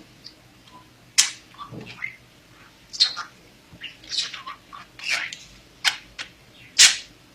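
Pet budgerigar chattering in a string of short, high-pitched chirps and squeaks at an irregular pace, with sharper calls about a second in, at three seconds and near the end.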